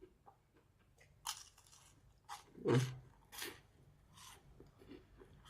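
Crunchy toasted bread being bitten and chewed close to the microphone: about five separate crisp crunches, the loudest a little under three seconds in.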